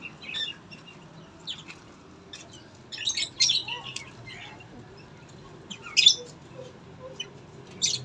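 Small birds chirping in short, shrill, scattered calls, with a cluster about three to four seconds in and another about six seconds in.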